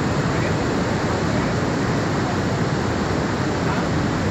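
Floodwater rushing steadily, a dense, even noise with no let-up.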